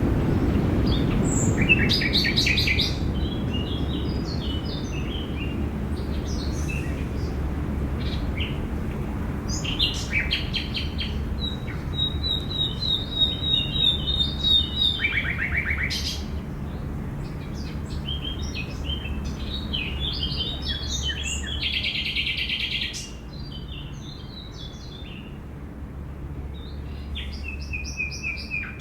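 Park ambience: several small songbirds chirping and singing in short, overlapping phrases, including a run of quick repeated high notes about halfway through. A low steady background rumble runs underneath, strongest at the start and easing off later.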